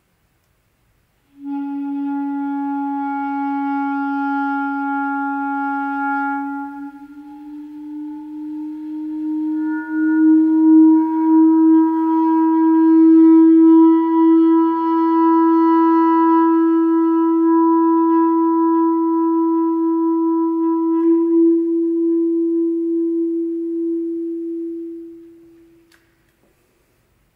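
Solo clarinet holding one long low note, venting the register by slowly uncovering a vent hole. The note starts about a second in and bends slightly upward around seven seconds. It then swells as a separate higher tone comes in and sounds steadily above it, and fades out near the end.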